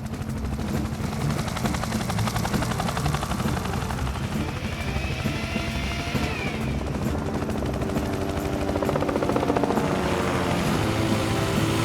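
Helicopter rotor chopping steadily as it lifts a load, with background music growing louder in the second half.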